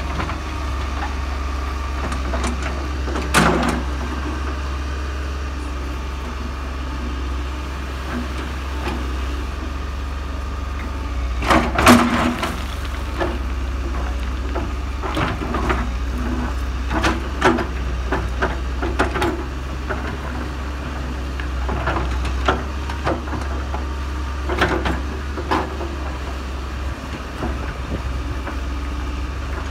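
Case tracked excavator at work: a steady low engine rumble throughout, with its steel bucket knocking and scraping against rocks and gravel in a string of sharp clatters, the loudest about twelve seconds in.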